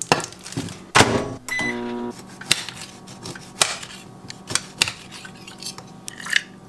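A chef's knife cutting key limes directly on a granite countertop, with scattered sharp knocks as the blade hits the stone. Near the start an aluminium can is set down on the counter and a short electronic beep sounds about one and a half seconds in, followed by a steady low hum.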